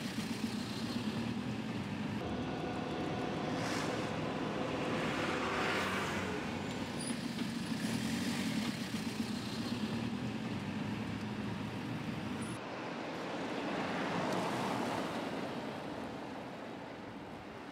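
Tyre and road noise of a 1953 Morris Minor converted to electric drive, running without any engine sound, with a faint steady low hum. Other traffic swells past twice.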